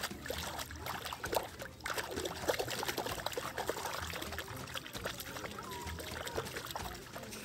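A hand splashing and scooping water in a shallow sandy pool, with water trickling and splattering in quick, irregular splashes.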